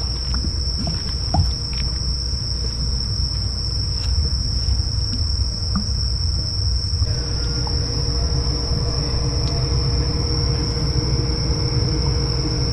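A steady, high-pitched chorus of crickets over a low rumble. About seven seconds in, a faint steady hum joins.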